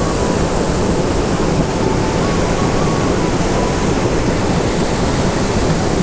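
Kodar waterfall on the Juhila river heard up close: a loud, steady rush of falling water.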